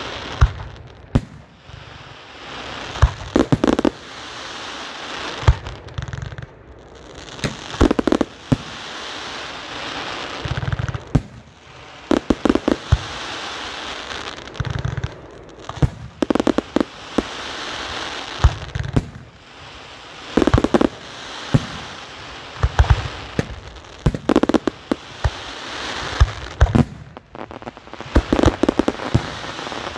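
Aerial firework shells bursting in a display: clusters of sharp bangs about every four seconds, with a steady hiss between them.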